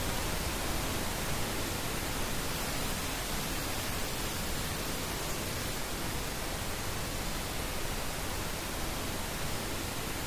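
Steady, even hiss of television static, like a set tuned to no channel.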